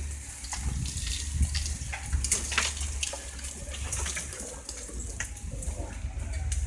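Land Rover engine running low and steady as the vehicle pushes through bush, with brush and branches crackling, snapping and scraping against it.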